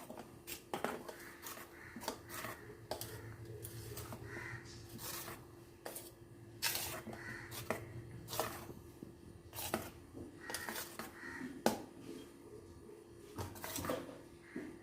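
A spoon stirring thick semolina cake batter in a bowl, with irregular scrapes and clicks against the bowl. A faint steady hum runs underneath.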